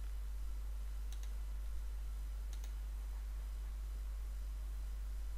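Steady low electrical hum, with a few faint computer mouse clicks: one about a second in and two close together about two and a half seconds in.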